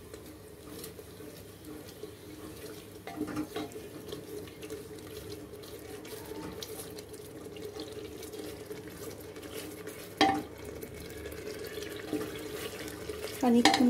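Spice masala with a little water sizzling and bubbling in an aluminium pressure cooker as it is stirred and fried with a wooden spatula. A steady hum runs underneath, with a light knock about three seconds in and a sharper knock of the spatula on the pot about ten seconds in.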